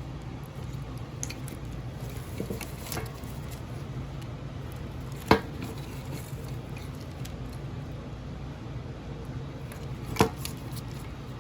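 Wiring harness being handled: its plastic connectors clack and tick against each other and the work surface, with two sharp knocks about five seconds apart, over a steady low hum.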